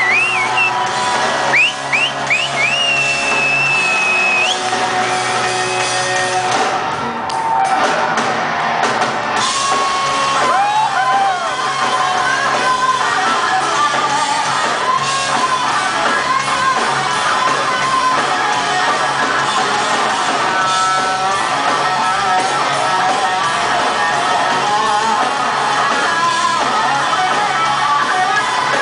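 Live rock band playing in a large hall: loud electric guitar, bass and drums with a singer's vocals. In the first few seconds a high held note bends up and down in pitch.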